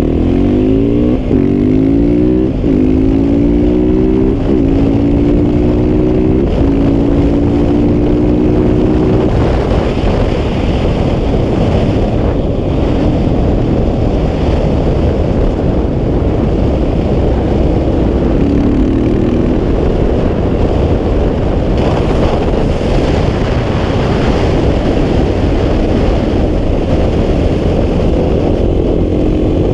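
KTM 690 SMC R's single-cylinder engine through a Wings aftermarket exhaust, accelerating hard and shifting up four times in quick succession in the first few seconds, the pitch climbing and dropping back at each shift. After that it runs at track speed under heavy wind noise on the microphone, with another rising burst of acceleration about two-thirds of the way through.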